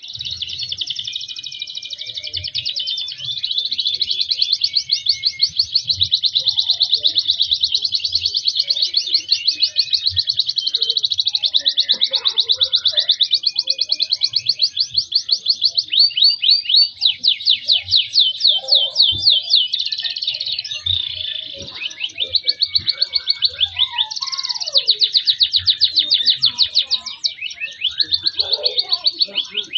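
Domestic canary in full song, singing without a break in long rapid trills of repeated notes, switching to a new faster or slower roll every few seconds.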